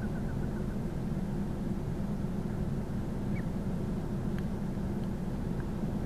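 Steady low rumble with a hum near the bottom of the range, with a quick run of faint high chirps right at the start.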